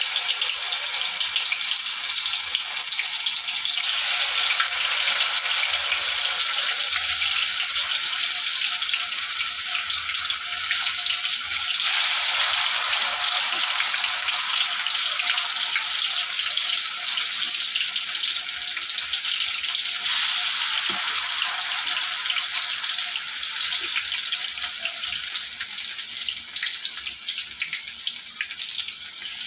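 Masala-coated cauliflower pieces deep-frying in well-heated oil, a loud, steady sizzle and crackle that swells a few times as more pieces go in.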